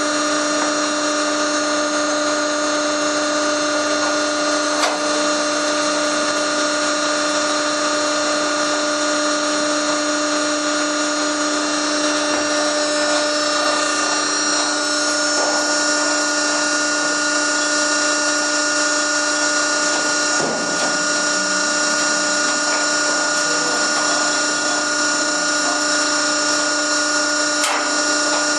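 Hydraulic power unit of an Acculoader container loader running with a steady mechanical whine, with a few light clanks near the end.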